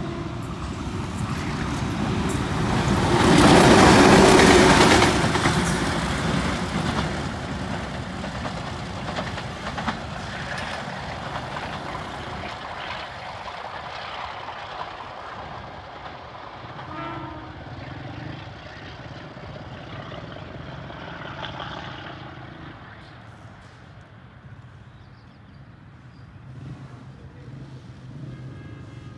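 Pakistan Railways HBU-20 diesel locomotive running light past at close range, loudest about four seconds in, then fading as it moves away down the line. Near the end a motorcycle engine idles close by.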